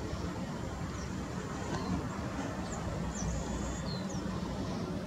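Low, steady rumble of an Airbus A320neo's Pratt & Whitney PW1100G geared turbofans at low power as the airliner taxis. A few short, high chirps come through in the middle.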